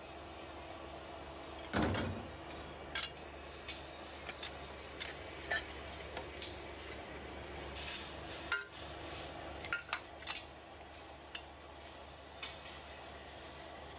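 Steel tubes and the steel frame of a hand-lever roller tube bender clanking and clinking as the tubes are handled and bent: one loud ringing metal knock about two seconds in, then scattered lighter clinks.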